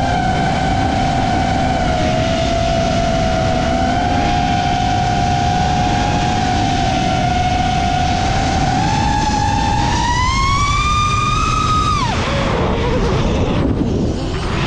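Motors and propellers of a 6S FPV racing quad (EMAX 2207 1700KV motors, Gemfan Hurricane props) whining over rushing wind noise. The whine holds a steady pitch, rises for a couple of seconds about ten seconds in, then drops sharply as the throttle is chopped.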